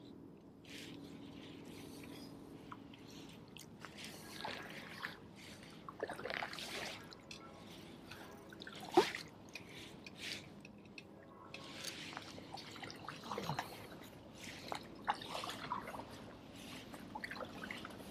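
Kayak paddle strokes in shallow marsh water, with irregular splashes and water dripping off the paddle blades. The loudest splash comes about nine seconds in.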